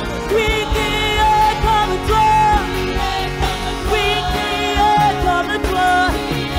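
Live gospel worship song: a woman singing lead into a microphone, with vibrato on held notes, over band accompaniment with a steady beat.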